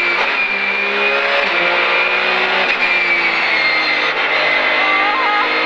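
Porsche 911 GT3 Cup race car's flat-six engine heard from inside the cockpit, running steadily on track with road noise, its pitch dropping slightly in small steps about a second and a half in and again near three seconds.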